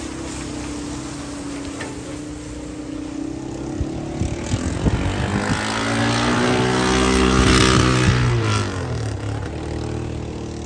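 A motor passes close by: its hum grows louder from about four seconds in, peaks around seven to eight seconds with its pitch bending up and then down, and fades again near the end.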